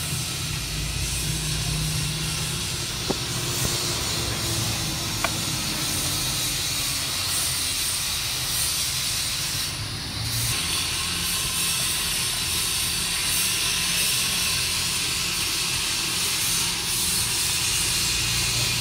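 Steady hissing background noise over a low hum, with two light clicks about three and five seconds in.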